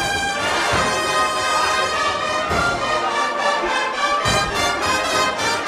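Agrupación musical (Spanish processional band of trumpets, cornets and low brass with drums) playing a procession march. The brass sustain chords over a slow bass drum beat.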